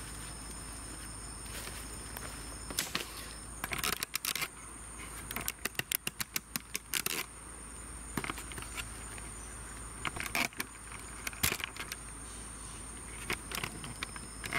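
Sharp crackles and clicks from movement on dry leaf litter and twigs, with a fast run of about ten clicks in the middle, over a steady high insect drone.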